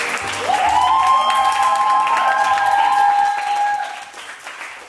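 Small group applauding and clapping, with one person's long cheering whoop that rises about half a second in and is held for about three seconds. The clapping dies down near the end.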